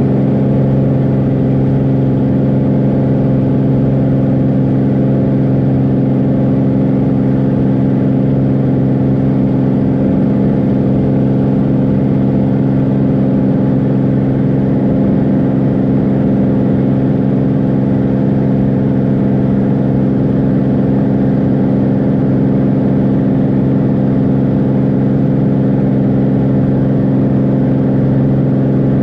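Beechcraft Bonanza's six-cylinder piston engine and propeller at climb power, heard inside the cockpit as a loud, steady drone that holds one pitch throughout.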